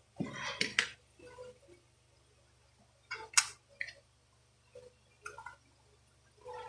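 Handling clicks and knocks of a Daisy Power Line 1200 air pistol and a small screwdriver on a tabletop, in a few short clusters: one just after the start, a sharper pair about three seconds in, and lighter taps later.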